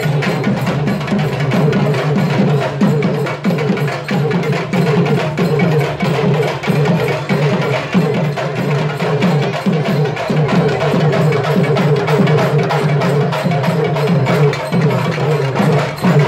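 Urumi melam drum troupe playing a fast, dense, unbroken rhythm, with the urumi drums' quick falling tones repeating low under the other drums.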